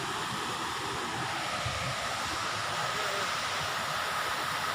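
Waterfall rushing steadily, its water sliding down a sloping, worn rock face like a water slide.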